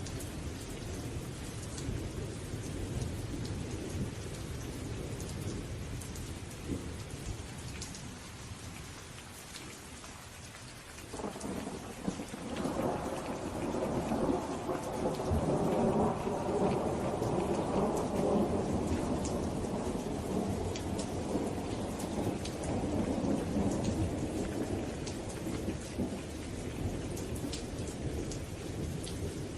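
Steady rain falling, with fine pattering drops and a low thunder rumble underneath. About eleven seconds in, a louder roll of thunder breaks in and rumbles on for some fifteen seconds before easing back.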